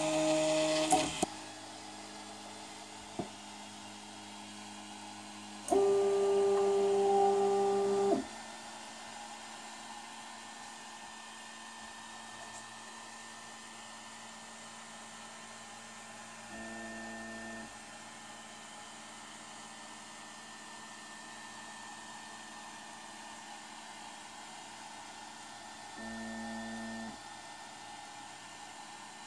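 Prusa i3 MK2S 3D printer running its calibration G-code: the stepper motors give pitched whines as the print head moves, a loud one of about two seconds some six seconds in, and two brief, quieter ones about nine seconds apart later. Between the moves the cooling fan whirs steadily.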